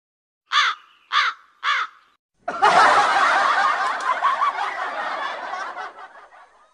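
Three short high giggles about half a second apart, then several people laughing together for about four seconds, tapering off near the end.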